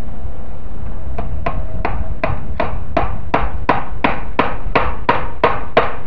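Hammer tapping a steel fence staple into a wooden fence post, about three light strikes a second that grow louder, each with a short metallic ring. The staple is being set just over the fence wire, not driven fully home, so the wire can still slide under it.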